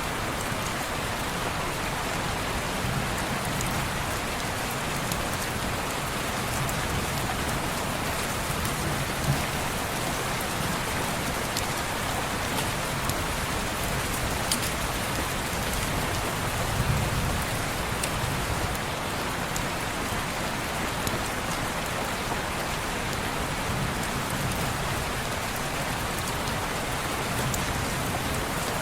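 Steady rain falling on a window pane, with scattered sharp ticks and a low rumble that swells briefly a little past the middle.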